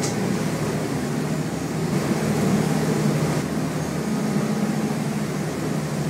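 A boat's engine running steadily under way: a low, even drone with a rushing noise over it.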